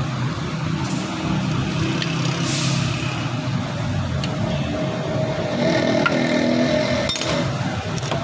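Toyota Vios car engine idling with a steady low hum, and a few light metallic clicks. A fainter higher tone comes in about five seconds in and fades out near the end.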